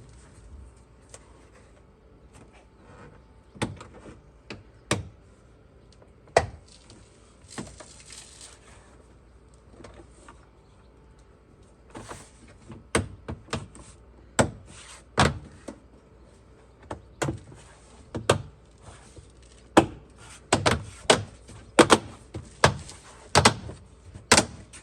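Door card being pressed and knocked home onto a Fiat 500 door, its plastic retaining clips snapping into the holes. It makes a series of sharp knocks: a few scattered at first, then a quick run of them, roughly one or two a second, through the second half.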